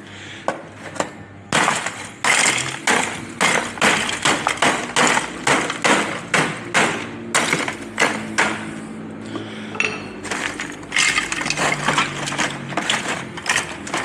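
Drink cans and bottles being pushed down into ice in a cooler: a quick run of sharp clinks and rattles, about two a second, starting about a second and a half in.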